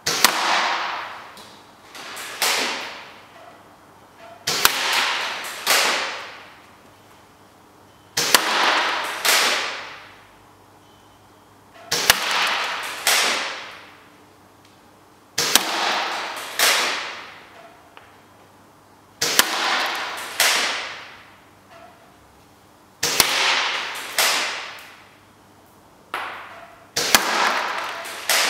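Sharp swishing cracks, each trailing off in a hiss that falls away over about a second. They come in pairs about a second apart, a new pair every three to four seconds, eight pairs in all.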